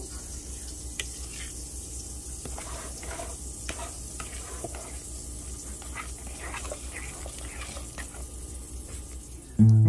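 Metal utensil stirring a thick, wet mashed-banana batter in a bowl: soft, irregular squelches and scrapes over a faint hiss and a low hum. Acoustic guitar music comes in loudly near the end.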